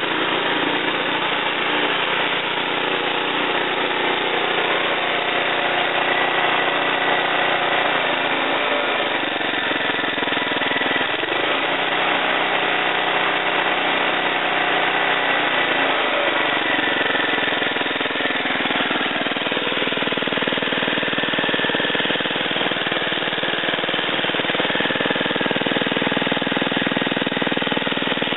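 Small single-cylinder lawn-mower engine running steadily, belt-driving the car alternator of a homemade 12-volt generator. Its note dips and wavers for a while about a third of the way in, then settles again.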